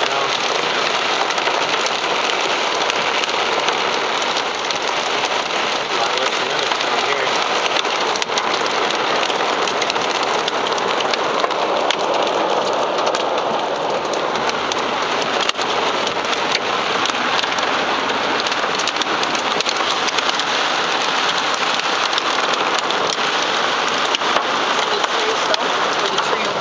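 Heavy storm rain pelting a car's roof and windshield, heard from inside the car as a dense, steady hiss full of small ticks from the drops.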